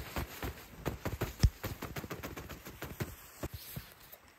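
A hand patting and swiping snow off a nylon tent fly (Naturehike Cloud-Up 2): a quick, uneven run of soft slaps and brushes on the taut fabric as the snow load is knocked off. One sharper slap comes about a second and a half in, and the pats thin out near the end.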